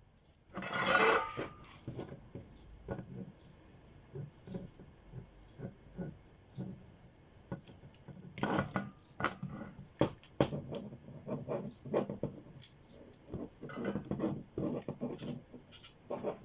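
Small hard objects being handled and set down. It opens with a loud scraping rustle about a second in, followed by many irregular clicks and light knocks.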